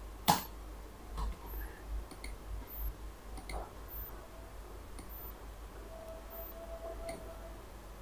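Computer mouse clicking: one sharp, loud click just after the start, then a few fainter, scattered clicks.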